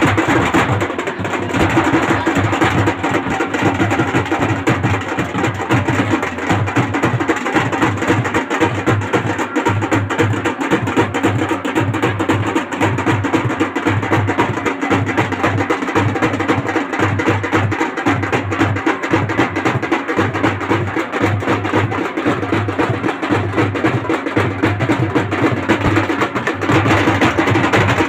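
Fast folk drumming: a dense, steady run of rapid drum strokes.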